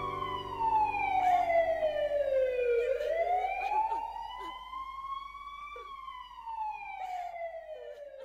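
Emergency vehicle siren in a slow wail: the pitch falls for about three seconds, rises for about three, then falls again as it grows fainter.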